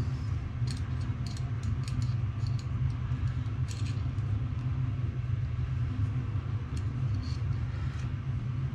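Steady low rumble, with scattered light clicks and taps of small metal and plastic 3D-printer parts being handled as the X-axis timing belt is threaded.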